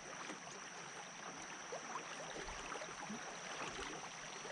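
Faint water sloshing and trickling around a paddle board on a shallow river, with scattered small drips and ticks and a steady high-pitched tone in the background.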